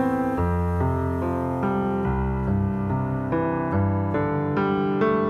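Grand piano played solo in an instrumental passage: a steady pattern of evenly struck notes and chords, with deep bass notes held underneath from about two seconds in.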